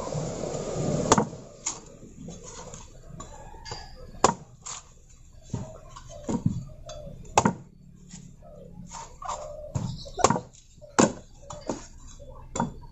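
A blade chopping into a young coconut's husk: about a dozen sharp chops at uneven intervals, with faint rustling between them.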